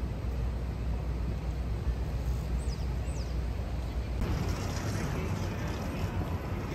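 Busy city street ambience: a steady low traffic rumble, with two brief high falling chirps a little under three seconds in.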